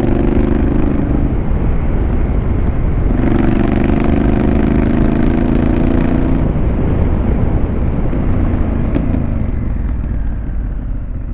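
Honda Africa Twin's parallel-twin engine through an aftermarket Fuel exhaust, pulling hard under acceleration with a slowly rising note. After a short break for a gear change it makes a second long pull, then eases off near the end. A low wind rumble runs underneath.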